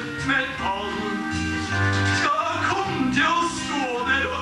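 A man singing a Norwegian vise at a microphone over instrumental backing with a steady bass line.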